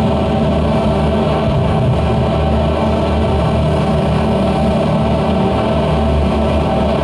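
Live band playing loud music: a dense, unbroken drone of sustained tones with no pauses or clear drum hits.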